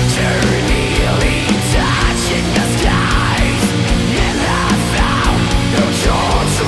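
Black metal studio recording playing loud and dense, with distorted guitars and a wavering melody line above sustained low chords.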